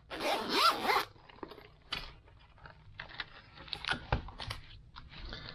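Zipper on a hard-shell zippered carry case being run open in about a second, followed by quieter rustling and clicks as the opened case and the bagged parts inside it are handled.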